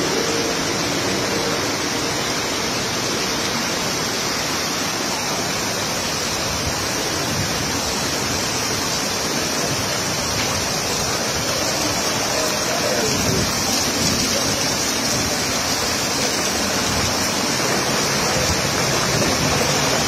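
Floodwater rushing across a street: a steady, loud, unbroken noise of fast-flowing water from creeks that have overflowed after heavy rain.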